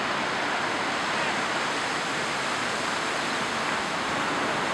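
Steady rushing of surf washing onto the shore, an even noise with no separate events standing out.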